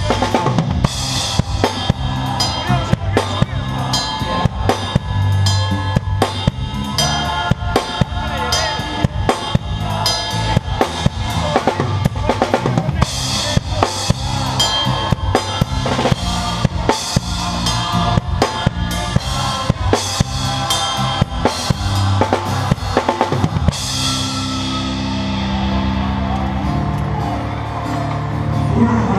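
Drum kit played live with a band: busy snare, bass-drum and cymbal hits over bass and other instruments. About 24 seconds in the drumming stops, and a cymbal rings away over steady low notes from the band.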